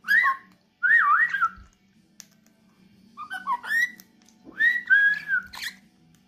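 A person and a dusky Pionus parrot whistling back and forth: four short whistled phrases that glide up and down in pitch, with pauses between them.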